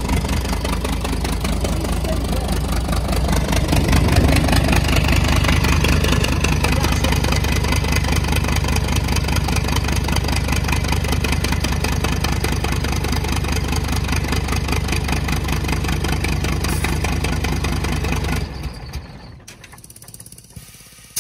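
Scania lorry's diesel engine running steadily with the cab tilted, puffing white smoke from one cylinder, which the mechanic takes to be water from a leaking EGR getting into the cylinder. It is switched off near the end and the sound stops abruptly.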